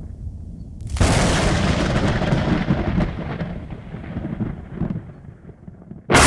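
Thunder: a sudden crack about a second in that rolls and rumbles, fading over several seconds, then another very loud sudden burst just before the end.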